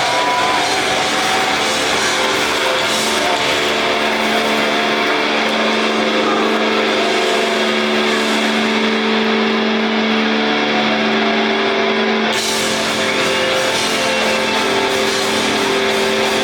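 Rock music with distorted electric guitar and drums, loud and continuous, changing chord about three-quarters of the way through.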